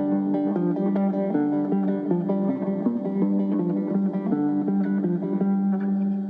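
Background music: guitar playing a run of plucked notes over held low notes.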